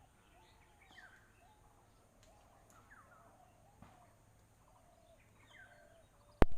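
Faint, repeated bird chirps in the background, then a single loud, sharp knock near the end.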